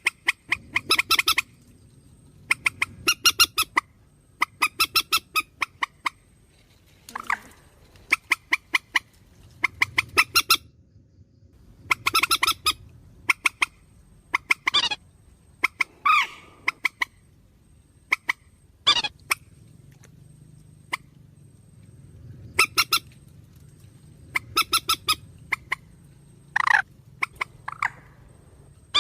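Purple swamphen calls used as a bird-trapping lure: bursts of rapid, harsh cackling notes about a second long, repeated every second or two, with a few single drawn-out wailing notes in between.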